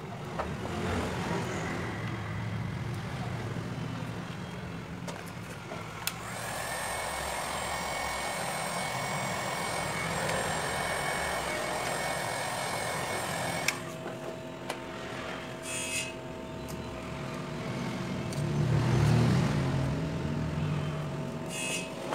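Hot air gun blowing on a phone's screen to soften the display adhesive: a steady rush with a thin whine, switched on about six seconds in and cut off about halfway through. A low rumble swells near the end.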